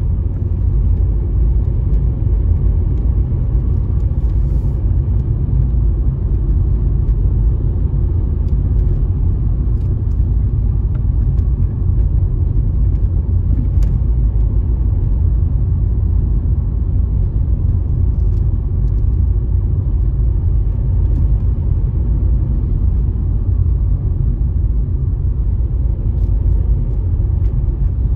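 Car driving along steadily: a low, even rumble of road and engine noise.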